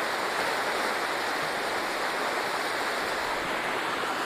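Steady rushing noise of flash-flood water flowing.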